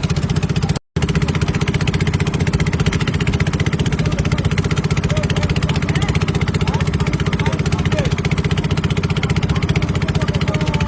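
A small engine running steadily at an even speed, with a fine regular firing pulse. Faint voices can be heard behind it. The sound cuts out completely for a moment about a second in.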